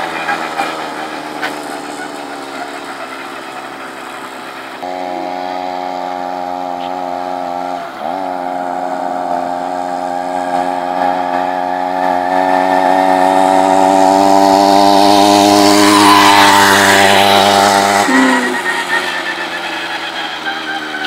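Two-stroke 58 cc brush-cutter engine on a motorized bicycle buzzing as the bike is ridden. The note fades at first, comes in strongly about five seconds in, then climbs slowly in pitch and loudness before dropping away sharply a few seconds before the end.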